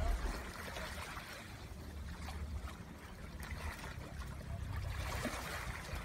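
Small sea waves lapping and washing against shoreline rocks, a soft, steady wash.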